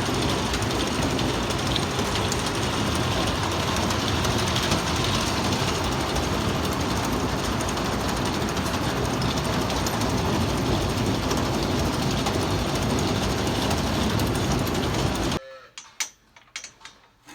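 Steady mechanical running noise of farm machinery, cutting off abruptly near the end, followed by a few faint clicks and knocks.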